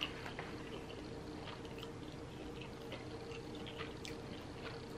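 Close-up chewing of fried chicken: soft, scattered wet mouth clicks and smacks over a faint steady hum.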